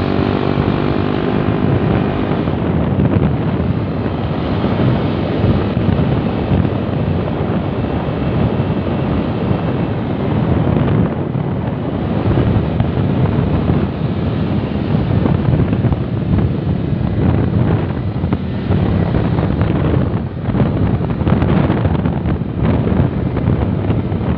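Wind buffeting the microphone on a moving motorcycle: a loud, steady rush of noise. The engine's pitched tone can be heard briefly at the start before the wind drowns it.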